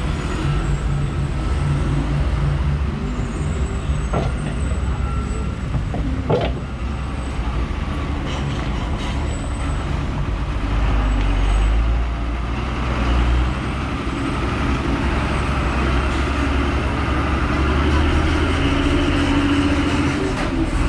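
Road traffic: vehicle engines running and passing, with a steady low rumble that builds in the second half. Two sharp knocks come at about four and six seconds in.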